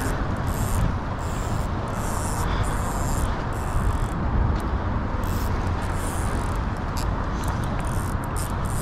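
Daiwa Luvias 2004 spinning reel working under load against a hooked kingfish on ultralight tackle, giving short irregular rasps over a steady low rumble.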